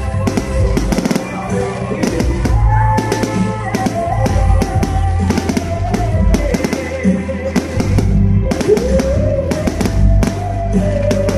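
Fireworks bursting and crackling in rapid, irregular bangs, over loud music with a heavy drum beat and a melody.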